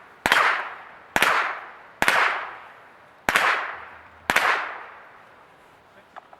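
A .22 rimfire rifle firing five shots at a steady pace, roughly one a second, each crack followed by a short echo.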